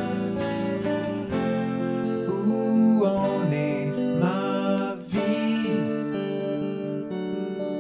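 Background music: a gentle song with acoustic guitar, with a wavering melody line in the middle.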